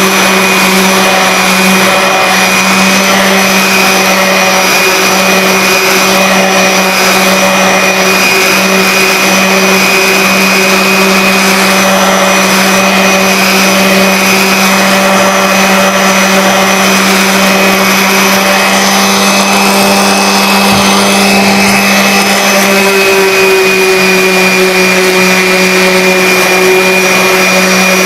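DeWalt random orbital sander running steadily under load, sanding the weathered teak of a sailboat toerail to strip the old finish. It makes a constant motor hum and whine, and the pitch shifts slightly about two-thirds of the way through.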